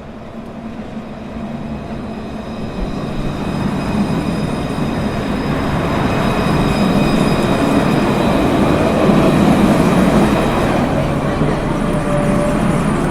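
A train running on rails, growing louder over the first several seconds as it comes near, then holding loud, with thin high steady squealing tones from the wheels above the running noise.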